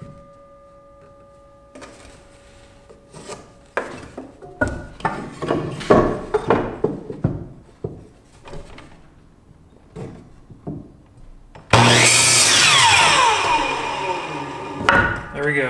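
2x4 lumber knocking and scraping as boards are handled and lined up against a Hitachi miter saw. About twelve seconds in, the saw cuts through a board with a sudden loud burst, and its blade's whine falls away as it winds down.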